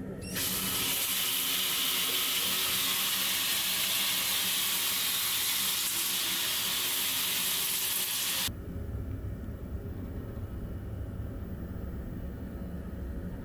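A steady, loud rushing hiss of water, which cuts off abruptly about eight seconds in, leaving a low rumble.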